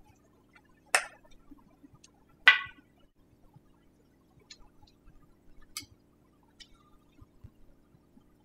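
Metal clicks from an Allen wrench loosening a hydraulic disc brake caliper's mounting bolts: two sharp clinks about a second and a half apart, then a few fainter ticks.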